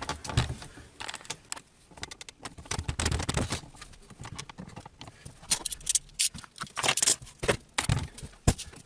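Application tape being handled over a sheet of cut vinyl: irregular crackles, taps and scrapes as the tape is unrolled, laid down and smoothed.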